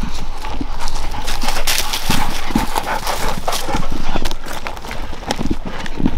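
Irregular footsteps of a person walking, with scuffing and rustling between the steps.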